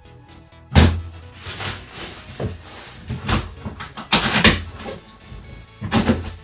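Cardboard carton and its packing being handled: a heavy thump about a second in, then scattered knocks and rustles, the loudest rustling burst around four seconds in.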